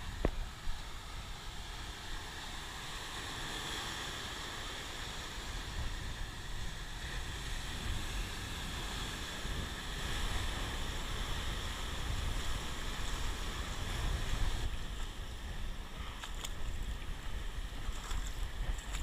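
Sea surf breaking and washing over rocks, heard as a steady rush, with wind rumbling on the microphone.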